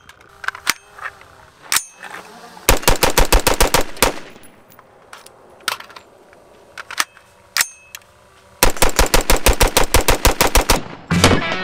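Gunfire from a 5.56 AR-15 pistol with a short 10.5-inch barrel and a muzzle brake. Scattered single shots come between two rapid strings, each fired at about ten shots a second. Music starts right at the end.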